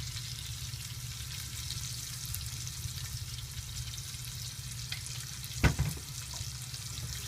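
Onion rings, paprika and garlic frying in oil in a pan, a steady crackling sizzle. One short knock about three-quarters of the way through.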